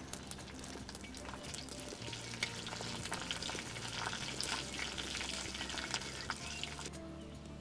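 Garlic, mustard seeds and curry leaves sizzling and crackling in hot oil in a black iron kadai, stirred with a wooden spatula. The crackling dies down near the end.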